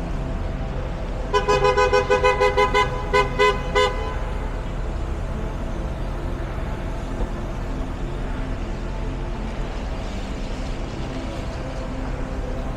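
Car horn honking in a rapid string of short blasts lasting about two and a half seconds, starting about a second in, over steady city street traffic.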